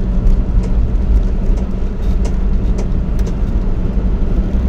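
Car driving on a paved road: steady low engine and tyre drone, with a few faint ticks now and then.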